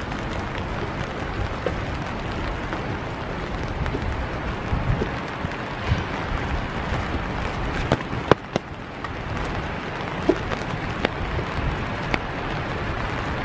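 Steady rain hiss with scattered sharp drip taps; the loudest, a close pair, come about eight seconds in.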